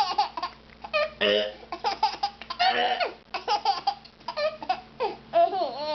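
Baby laughing in a string of short, high-pitched laughs.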